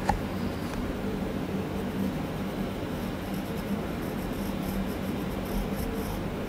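Pencil sketching on drawing paper: light scratchy strokes over a steady low hum, with a short click at the very start.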